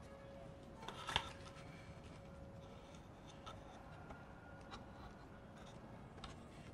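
Faint handling of paper and a pen, soft rustles and scratches, with a sharp click about a second in and a few lighter ticks after it.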